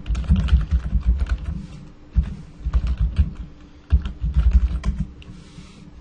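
Typing on a computer keyboard: irregular runs of keystrokes with dull thuds, pausing briefly about two seconds in and again just before four seconds, then a brief soft hiss near the end.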